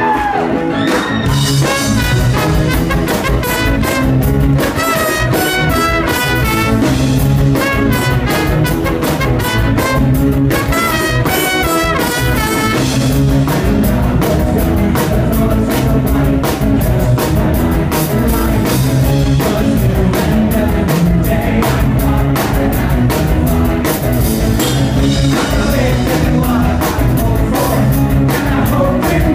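Live ska-punk band playing loudly: drum kit, bass and electric guitars, with a horn line carrying a stepping melody through the first half.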